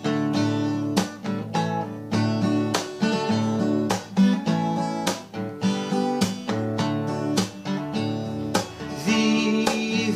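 Music: an acoustic guitar strumming chords in a steady rhythm, with no singing.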